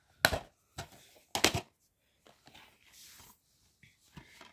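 Plastic DVD cases being handled: three or four sharp clicks and knocks in the first second and a half, then faint soft rustling as the next case is picked up.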